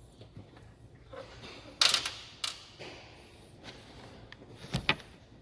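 Hand tools and metal engine parts clicking and clanking during disassembly, with a sharp knock about two seconds in, another just after, and a couple more near the end.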